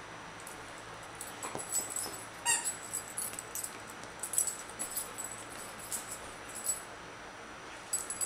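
Blue heeler mix puppy chewing a vinyl hamburger squeak toy: irregular crackly gnawing clicks of teeth on the toy start about a second in, with one brief squeak from the toy about two and a half seconds in.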